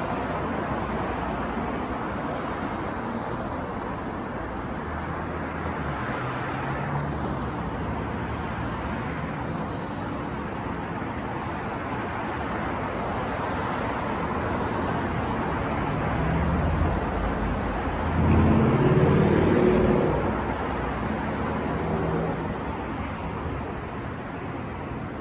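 City street traffic: a steady wash of passing cars and engines, with a heavier vehicle's engine growing louder and passing close about 18 seconds in.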